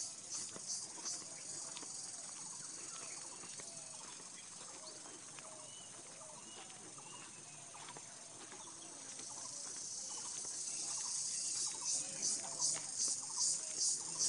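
Insects chirping outdoors in a high, pulsing rhythm of about three pulses a second, which gives way to a steadier high buzz in the middle and comes back louder over the last few seconds.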